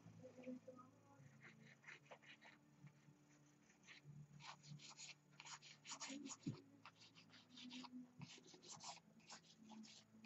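Faint scratchy strokes of a palette knife dragged across canvas, laying thin horizontal lines of white oil paint as water highlights. There are a few light strokes early, then a quicker run of them from about four seconds in.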